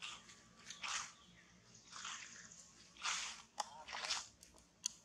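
Dry fallen leaves crunching in separate bursts, roughly once a second, as monkeys walk over the leaf litter.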